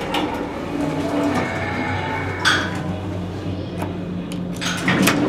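A 1998 Schindler passenger elevator's doors working noisily, with a sharp knock about halfway through and a louder burst of clattering near the end, over a steady low hum.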